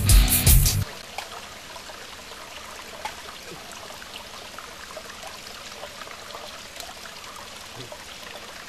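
Heavy rock music cuts off about a second in, leaving the steady trickle of a stream with faint scattered ticks.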